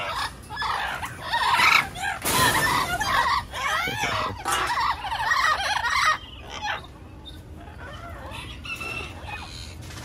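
Amazon parrots squawking and screeching: a dense run of short, harsh calls for the first six seconds, then fewer and quieter ones. A leafy branch rustles against the cage wire about two and a half seconds in.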